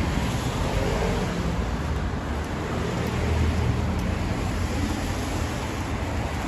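Road traffic on a rain-wet city street: vehicles running past, with a low engine rumble that swells about halfway through.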